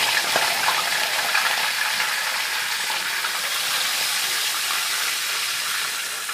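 Whole fish frying in hot oil in a wok, a steady sizzle that fades a little toward the end.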